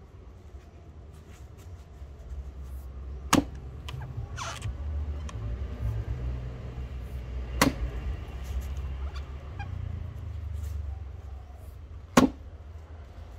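Firefighter axe chopping into a wooden stump: three sharp blows about four seconds apart, the last the loudest. A low rumble runs beneath them.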